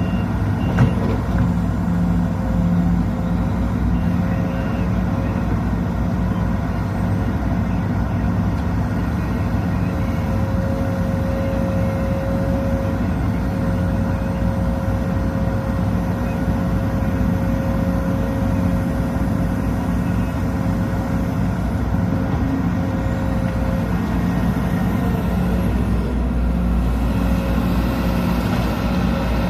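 Sumitomo SH210 hydraulic excavator's diesel engine running steadily while working, with a steady whine that stops about three-quarters of the way through. A short knock sounds about a second in.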